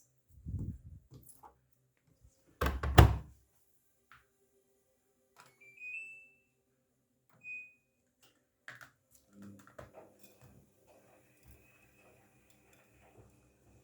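Daewoo DWD-FT1013 washing machine being set going: two thuds, the second the loudest, then two short electronic beeps. About ten seconds in, a low steady hum sets in.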